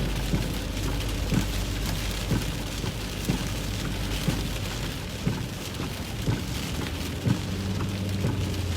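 Heavy rain pelting a moving truck, heard from inside the cab as a dense patter with irregular sharper drop hits. Under it runs a steady low drone from the tires and engine on the wet road.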